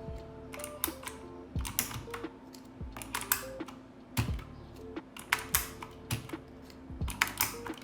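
Keycaps being pulled off a Multispeed CK61 60% mechanical keyboard with blue switches using a keycap puller: irregular sharp plastic clicks and snaps, coming in small clusters.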